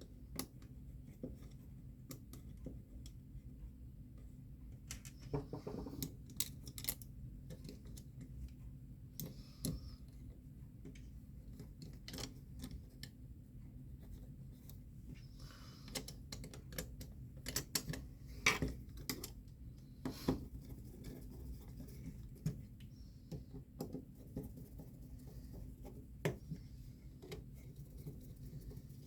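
Small metal parts of a Brabo (Oak) gumball machine coin mechanism being handled and fitted back together: irregular light clicks and knocks, busiest about two-thirds of the way in, over a faint low hum.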